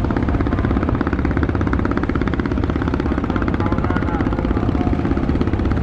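Diesel engine of a passenger river launch running under way, a rapid, even throbbing that holds steady throughout.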